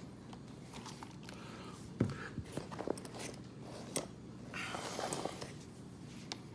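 Scattered clicks and knocks and a short scrape from an ECX Torment RC truck's parts being handled during repair work.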